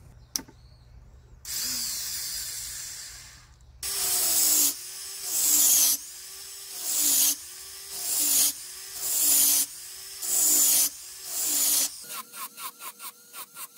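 Jeweller's micromotor handpiece with a small burr grinding a silver ring. It runs in repeated strokes about once a second, each rising and falling in pitch. Near the end this changes to a fast ticking, about nine a second, over a steady hum.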